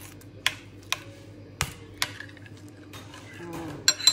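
A few sharp taps as watermelon chunks are scraped off a cutting board into a cut-glass bowl of juice, then a ringing clink of a metal spoon against the glass near the end.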